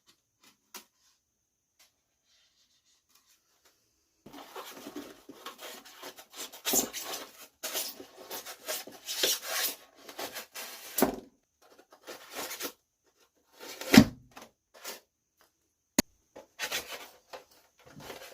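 Hands working on a styrofoam cooler: irregular scratchy rubbing and scraping, starting about four seconds in. There is a knock about 14 seconds in and a sharp click about 16 seconds in.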